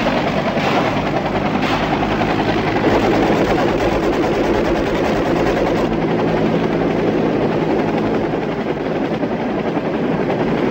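UH-1 Huey helicopter running close by, a steady heavy rotor and turbine noise, with two sharp cracks in the first two seconds.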